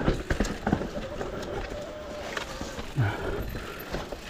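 Mountain bike rolling fast down a dirt trail: tyre noise and rattling over rough ground, with several sharp knocks in the first second and a heavier thump about three seconds in.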